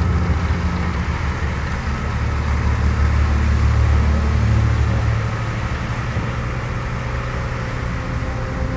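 Nisseki HTR146 small rotary snowplow at work: its engine runs with a steady low drone under load while the rotary blower throws snow out of the chute with a rushing noise.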